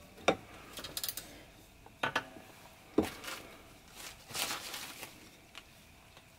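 Metal sections of a walking stick being handled, three sharp clicks as the tubes knock together, with soft rustling of handling in between.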